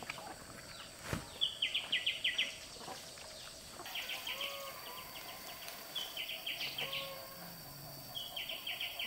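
Outdoor ambience with a repeated animal call: a high, rhythmic chirping burst of about six quick pulses, coming back roughly every two seconds, with a few faint short whistle-like calls in between.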